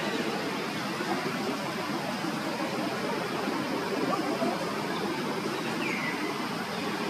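Steady rushing noise, with one short, faint high chirp that falls in pitch about six seconds in.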